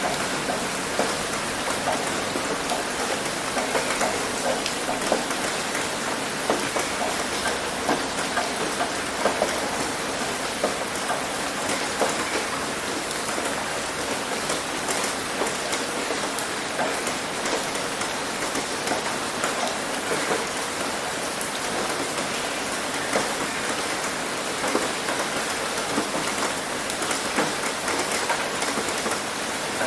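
Heavy rain falling steadily on a roof: a dense, even hiss dotted with many sharp drop impacts.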